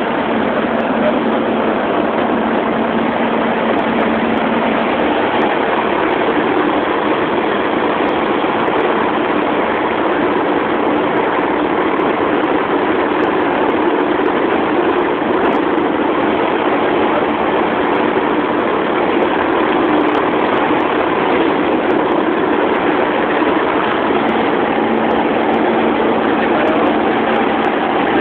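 Light aircraft's engine and propeller droning steadily in level flight, heard from inside the cabin, with a low hum running under the noise.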